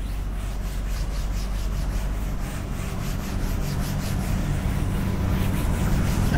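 Quick, repeated rubbing strokes against a classroom teaching board, over a steady low hum.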